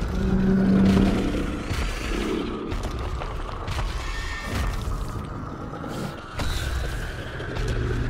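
Film-style dinosaur sound effects: a deep pitched growl over low rumbling, loudest about a second in, with a shorter, higher call around four seconds in.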